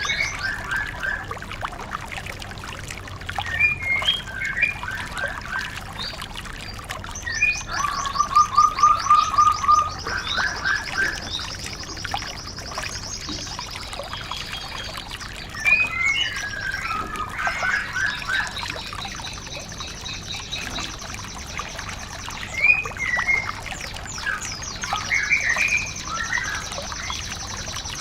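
White-eye (pleci) song: bursts of quick chirps and high, rapid trills every few seconds, over a steady trickle of water.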